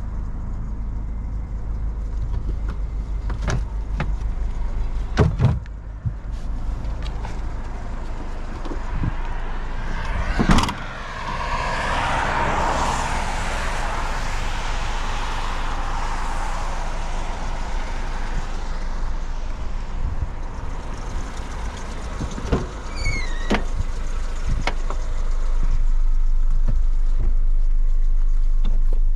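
Honda HR-V's 1.6-litre four-cylinder running, heard from inside the car as a steady low rumble. Several sharp clicks and knocks come through, the loudest about ten seconds in. A rushing noise swells and fades in the middle, and the rumble gets louder and steadier near the end.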